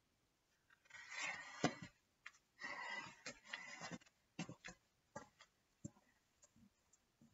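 Rustling and shuffling of clothes and body as a person gets up from kneeling on a laminate floor, then a string of footsteps in sandals on the laminate, growing fainter as they walk away.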